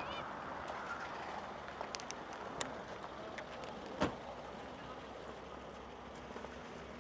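Opel Vectra A sedan moving slowly at low speed, its engine and tyres a steady, faint sound that slowly fades. A single sharp knock comes about four seconds in.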